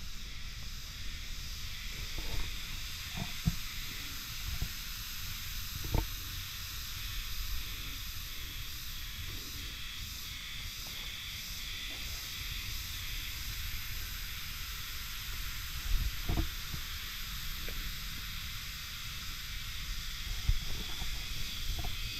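Steady outdoor background hiss with a low rumble, broken by a few short soft knocks.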